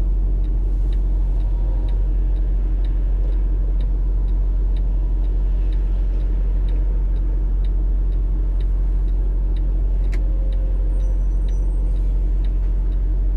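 Steady low engine idle hum heard inside a stopped car's cabin, with the turn signal ticking evenly about every two-thirds of a second. There is one sharper click about ten seconds in.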